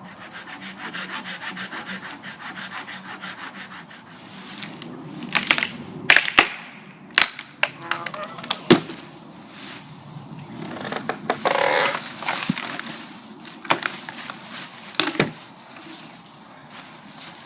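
Dead wood being gathered for a campfire: a rhythmic rustling at first, then a series of sharp cracks as branches snap, with a few more cracks near the end.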